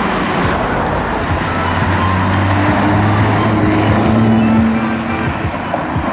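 A car engine running close by amid street traffic noise, growing louder past the middle and then fading, as a car goes by.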